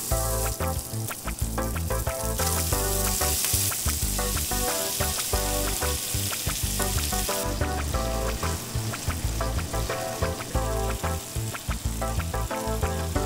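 Pork belly, tomato and kimchi sizzling in sesame oil in a frying pan over medium heat as they are stir-fried. The hiss grows stronger a couple of seconds in and again past the middle.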